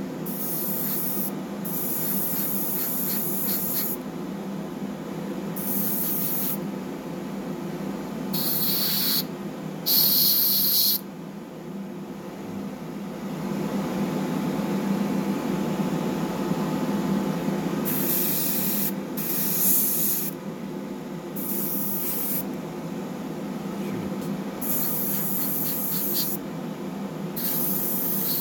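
Airbrush spraying paint in a string of short hissing bursts, with a pause of several seconds in the middle. A steady low hum runs underneath.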